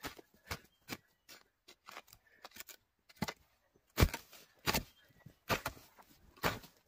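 Digging hoe chopping into and scraping through loose soil, with the loosened dirt scattering: a string of short, sharp strikes at irregular spacing, the loudest about four seconds in.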